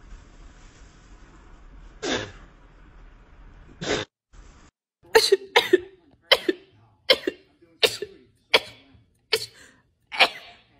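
A person's fit of short, sharp coughs, about one every three quarters of a second from about five seconds in, after two single bursts at about two and four seconds.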